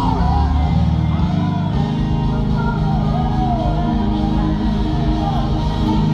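Live gospel praise-and-worship music: singers on microphones leading a song over instrumental backing with a strong bass.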